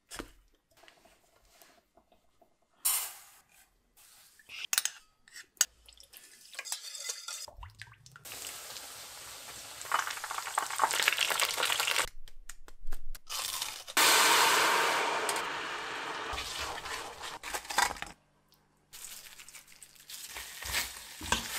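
Cooking sounds in quick cuts: crunchy handling of starch-coated chicken, soy sauce poured into a steel bowl, and long stretches of steady hissing sizzle. Near the end come crispy fried chicken pieces dropped and stirred into thick sauce in a metal pan.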